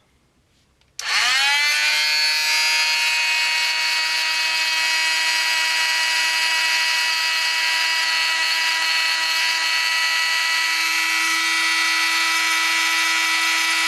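Harbor Freight oscillating multi-tool switched on about a second in, its motor quickly winding up to a steady high-pitched buzz that it holds without a break.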